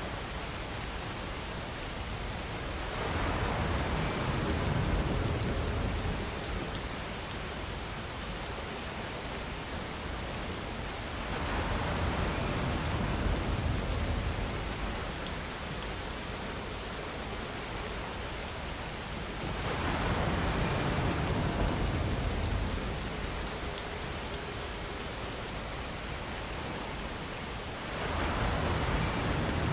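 Steady heavy rain falling, swelling louder with a low rumble four times, about every eight seconds.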